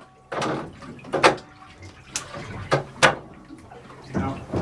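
About five short, sharp clicks and knocks, spaced unevenly, as hands and tools work among the engine and battery connections in a boat's engine room. The engine is not running.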